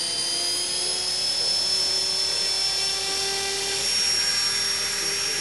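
E-flite Blade 400 RC electric helicopter hovering: a high electric motor and gear whine over the rotor blades, the whine rising slightly in pitch over the first couple of seconds, then holding steady.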